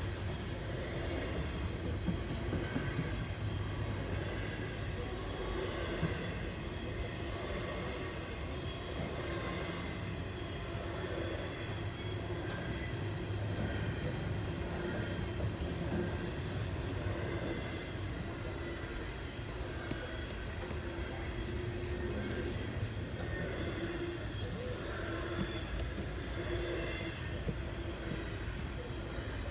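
CSX freight train rolling past, its wheels on the rails making a steady rumble with a few faint clicks.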